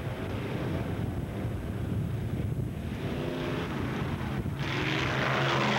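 Four-wheel-drive Jeeps drag racing on a dirt strip, their engines at full throttle and rising in pitch as they accelerate. Near the end there is a loud rushing noise as they pass close by.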